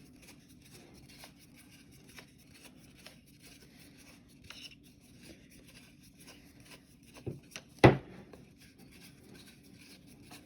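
Faint clicks and scrapes of a threaded side handle being fumbled at the side of a Ryobi angle grinder's housing while it fails to start its thread. Two knocks come late on, the second one sharp and the loudest sound.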